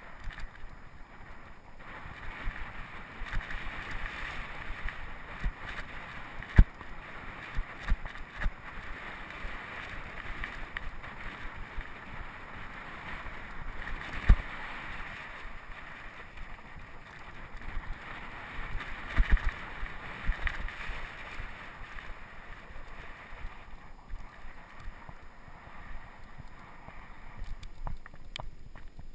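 Mountain bike riding over a sandy dirt trail: a steady rush of tyre noise and wind on the microphone, with the bike rattling and sharp knocks over bumps, the loudest about six, fourteen and nineteen seconds in.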